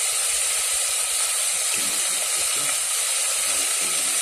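Chicken pieces frying in hot oil in a pot: a steady, loud sizzle.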